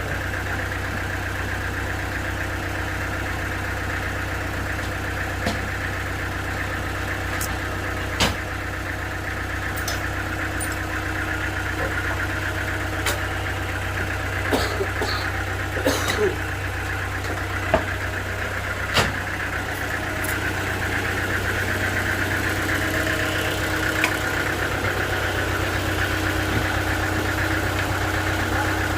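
An engine running steadily at idle, with a handful of sharp knocks over it.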